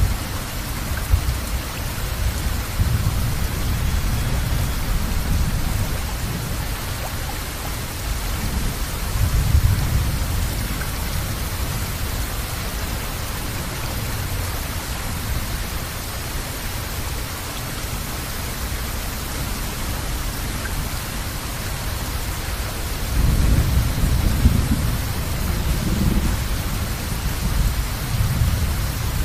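Steady rainfall hissing, with low rolling thunder rumbling underneath. The rumble swells about a third of the way in and again, more strongly, near the end.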